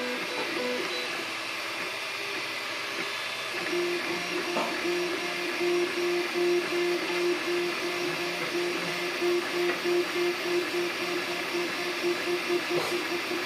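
3D printer printing: its stepper motors sing in short tones as the print head moves, settling from about four seconds in into one repeated tone pulsing about twice a second, over a steady whir.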